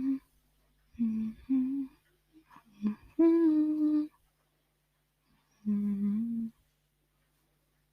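A girl humming a tune in short held notes with pauses between them; the longest and loudest note comes a little over three seconds in.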